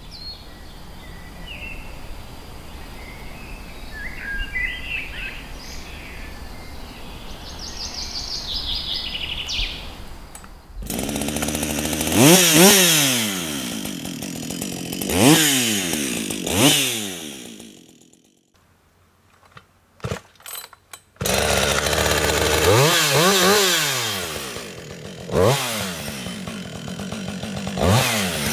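Birds chirping over quiet outdoor ambience. About eleven seconds in, a Husqvarna 560 XP 60 cc two-stroke chainsaw starts up and is revved hard several times, each rev rising and falling back towards idle. It breaks off into a few seconds of near silence with a few clicks, then is revved again three more times.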